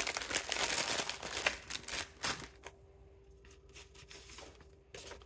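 Sheets and cards of paper ephemera being shuffled through by hand, rustling and crinkling for the first two seconds or so, then quieter with a few light taps and paper touches.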